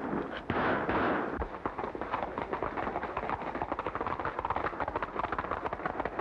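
Revolver gunfire in rapid, repeated shots, the heaviest near the start, with the hoofbeats of galloping horses under the later shots.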